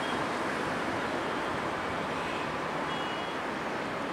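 Steady rumble and hiss of an intercity passenger train running away along the track, slowly easing off. Faint brief wheel squeals come about two and three seconds in.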